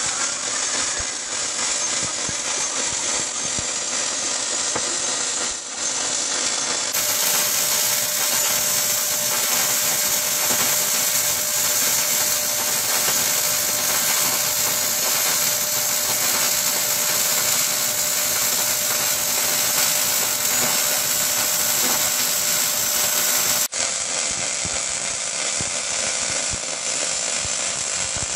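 MIG welding arc on steel plate: a steady, crackling buzz of the wire feeding into the weld, in long runs broken by abrupt cuts at about a quarter of the way in and near the end.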